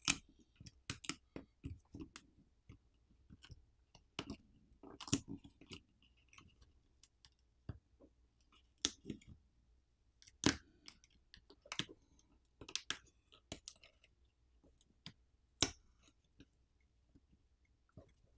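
Faint, irregular clicks and light scrapes as the charger port flex cable is peeled off the iPhone SE 2022's frame, with a few sharper clicks standing out about five, ten and fifteen seconds in.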